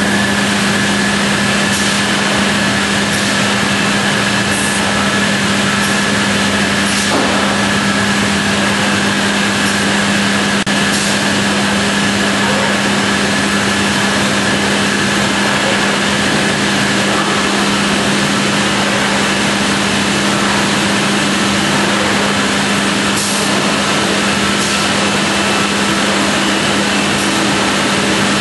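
Busellato JET 200 RT CNC router running a machining pass on a cabinet end panel: a loud, steady machine noise with a strong hum and a fainter high tone, and a few brief clicks along the way.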